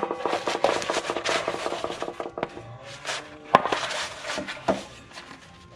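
Stiff gasket material crackling and rustling as a sheet is unrolled and pressed flat by hand, with a few sharp knocks, the loudest about three and a half seconds in.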